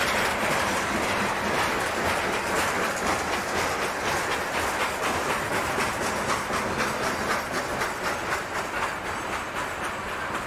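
Freight cars of a long mixed freight train rolling past at close range: steel wheels running on the rails, with a rapid train of clicks from the wheels, easing off slightly toward the end.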